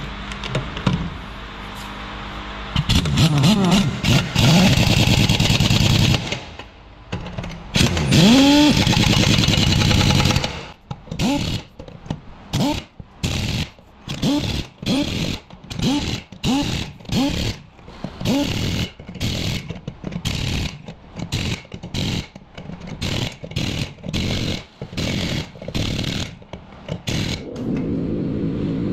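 An engine or machine running. It is loud for several seconds, then comes in short, regular bursts about one and a half a second, each with a quick swing in pitch, and settles back to a steady run near the end.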